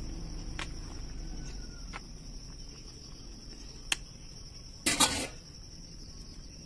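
Insects, crickets by their sound, chirping in a steady high continuous drone, over a faint low rumble, with a few light clicks and one brief loud knock about five seconds in.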